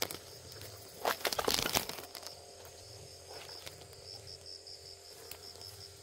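An insect chirps steadily in quick, even high-pitched pulses, with a burst of rustling and crackling about a second in.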